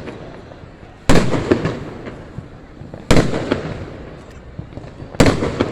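Aerial fireworks bursting: three loud bangs about two seconds apart, each followed by smaller pops and a tail that fades over a second or so.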